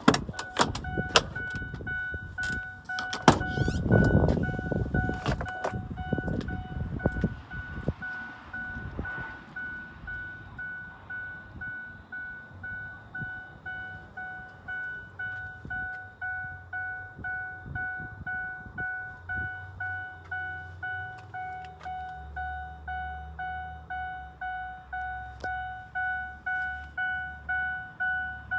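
Ford F-150 door-open warning chime: an evenly repeating electronic ding that sounds while the cab door stands open. It gets louder near the end. In the first few seconds the door latch clicks and there are thumps as the door is pulled open.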